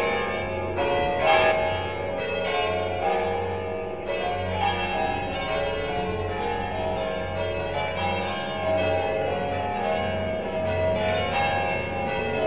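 Church bells pealing from a cathedral bell tower: several bells struck over and over in an irregular sequence, their tones overlapping and ringing on without a break.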